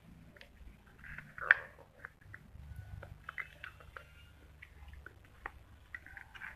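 Hard clay pot fragment being bitten and chewed: one sharp crack about one and a half seconds in, then scattered small crunches and clicks as the pieces are chewed.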